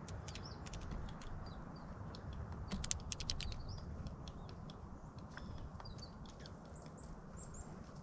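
Blue jay pecking at seed on a wooden platform feeder: scattered sharp taps with a quick flurry about three seconds in. Short, faint, high bird chirps come now and then, several near the end, over a steady low rumble.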